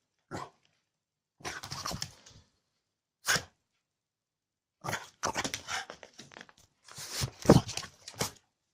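An agitated French bulldog barking in short bursts with silent gaps between them: a single sharp bark about three seconds in, and quick runs of barks around two, five and seven seconds in, the loudest near the end.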